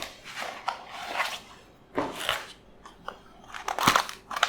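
Unboxing handling noises: packaging and plastic rustling and crinkling in irregular bursts, with scattered light clicks and knocks, the sharpest a little before the end.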